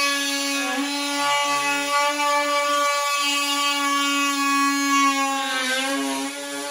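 Cordless drill running steadily as a hole saw cuts through the particleboard floor of a vanity cabinet, its motor pitch sagging briefly near the end.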